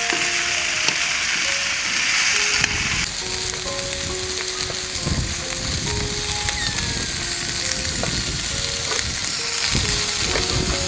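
Food sizzling as it fries in a pan, with knocks of stirring in the pan. The sizzle's hiss eases about three seconds in, and soft background music plays over it.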